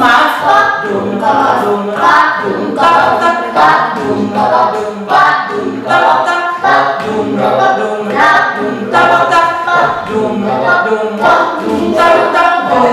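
A group of voices singing together unaccompanied, a cappella.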